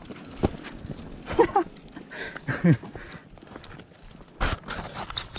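Scattered sharp clicks and knocks, the loudest about four and a half seconds in, with a couple of short voice sounds between them. The sound cuts off suddenly at the end.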